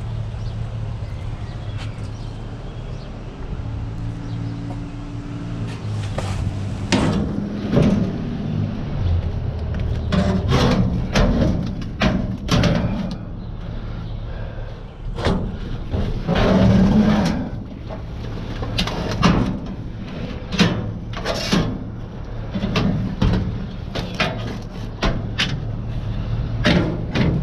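Repeated irregular clanks and bangs of scrap metal being thrown and loaded, starting a few seconds in, over a steady low hum.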